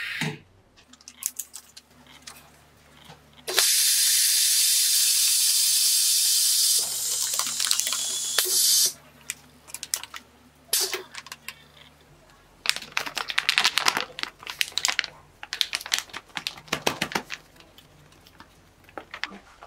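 Clear plastic bags crinkling and rustling as they are handled and fitted onto a nozzle-type vacuum sealer. About three and a half seconds in, a loud steady hiss of air rushing through the sealer's nozzles starts. It drops slightly after about three seconds and cuts off about two seconds later.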